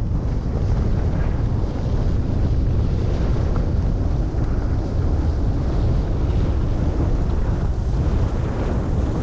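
Wind rushing over the microphone of a skier heading downhill: a steady low rumble with a thinner hiss above it, which fits skis sliding on snow.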